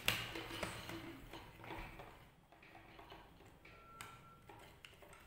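Faint clicks and taps as a digital multimeter and circuit boards with ribbon cables are handled on a wooden table, with a sharper click at the very start. A short, faint, thin tone sounds about four seconds in.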